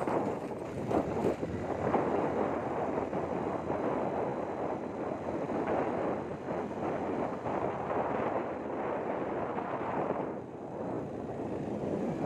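Wind buffeting the microphone over a steady rush of vehicle noise, with small surges in loudness.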